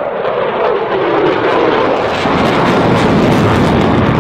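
Fighter jet engines at high thrust as the jet pulls up and hangs near vertical: a loud, steady jet noise. A deeper rumble builds in from about halfway through.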